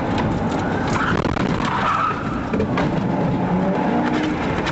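Police car driven off at speed: engine and tyre noise running steadily.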